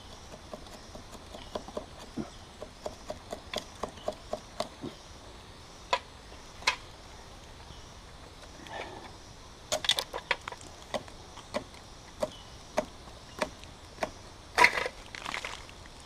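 Knife blade scraping and chipping hardened resin off a tree trunk's bark: a quick run of short scrapes and taps, then scattered single knocks, the loudest near the end.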